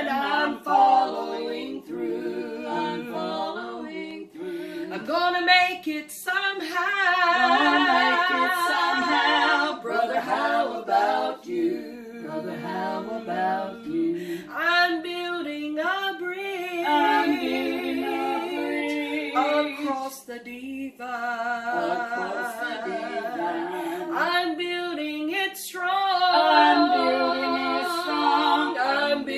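Three women singing a worship song together unaccompanied, holding long notes with a wide vibrato between short breaths.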